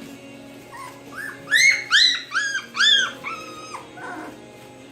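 Three-week-old Australian Shepherd puppies whimpering and squealing, a run of short high-pitched cries, several overlapping, from about a second in until nearly four seconds in.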